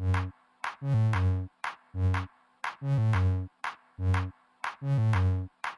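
Electronic background music: a steady drum-machine beat with synth bass notes.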